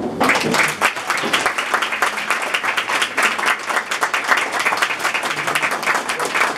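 A small crowd of spectators clapping steadily after the final 9-ball is pocketed to finish the rack.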